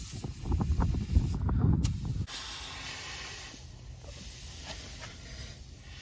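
About two seconds of jumbled rumbling and knocking, then a steady hiss.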